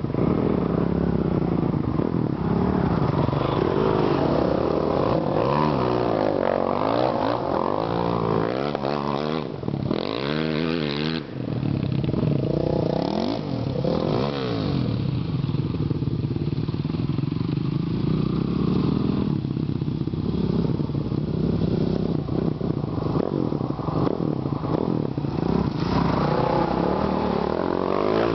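450 cc four-stroke motocross bikes revving hard, the engine note rising and falling over and over as they ride through the mud pond. Near the end one bike blasts through the mud close by, spraying mud and water.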